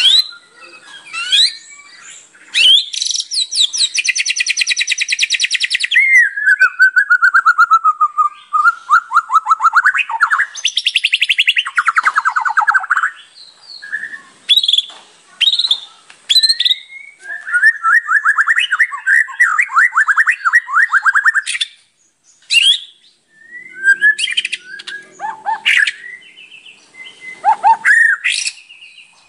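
White-rumped shama (murai batu) singing a long, varied song packed with imitated phrases: very fast trills, falling runs of notes, a buzzy rattle and short sharp whistles, with brief pauses between phrases.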